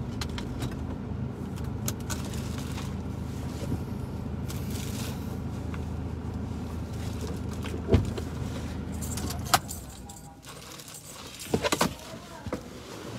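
Car engine idling steadily, heard from inside the cabin, then switched off about ten seconds in. Two sharp clicks come just before it stops, and a quick rattle of clicks follows near the end.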